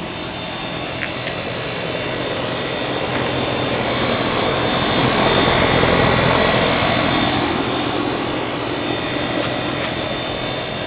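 2019 Goodman GSX14 2-ton straight-cool condenser with a rotary compressor running: a steady rush of fan air over a low hum. The rush grows louder for a few seconds in the middle, then eases again.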